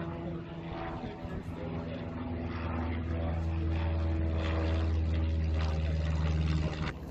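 Propeller airplane engine running steadily with a low, even drone. It grows a little louder through the middle and drops back near the end.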